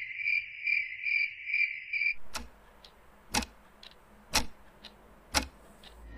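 Crickets chirping in a steady pulsing trill, about three chirps a second, that cuts off about two seconds in. Then a clock ticking, a louder tick each second with fainter ticks in between.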